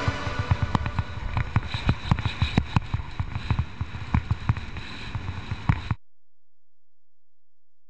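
Skiing run heard through a helmet-mounted camera's microphone: wind buffeting the microphone and skis chattering over hard snow, a low rumble with many irregular knocks. It cuts to silence about six seconds in.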